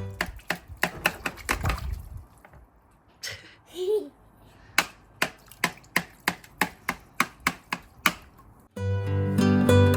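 A run of sharp taps, quick at first, then after a pause a steady beat of about three taps a second. Guitar music fades out at the start and comes back in near the end.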